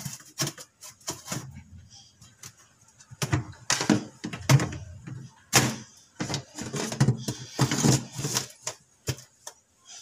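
Dishwasher drain filter, a green plastic cylinder with its mesh plate, being fitted back into the sump of a stainless steel tub: an irregular series of plastic knocks, scrapes and clicks, busier in the second half.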